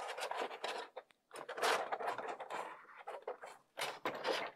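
Thin-walled 3D-printed lightweight PLA cowling scraping and rubbing against the RC plane's fuselage as it is pushed on by hand, in a few scratchy stretches with short breaks; the tight cowling is not going on all the way.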